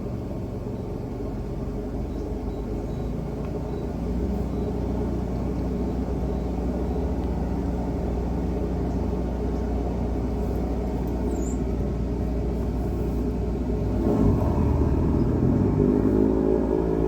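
Sewer hydro jetter running steadily while it is turned up to blast tree roots out of a sewer line. It gets louder about four seconds in and again near the end, where its pitch changes.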